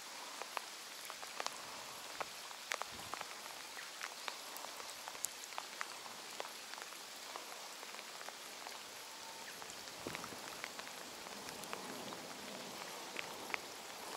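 Steady rain falling on a lake surface, with scattered sharp ticks throughout.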